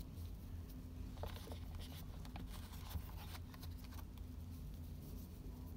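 Faint handling noise of a silicone watch strap being fitted to a smartwatch case: soft rustling and a few light clicks from about one to three and a half seconds in, over a steady low hum.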